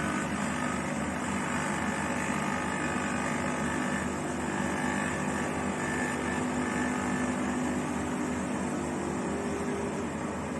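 Steady electric buzz of an espresso machine's vibratory water pump running after its button is pressed, pushing water through the machine.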